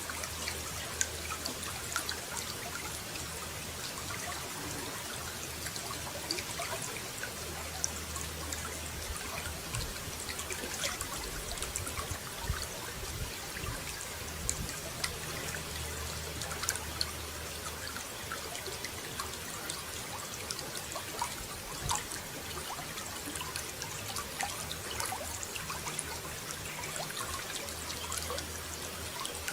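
Water running and trickling steadily, with many small splashes and drips.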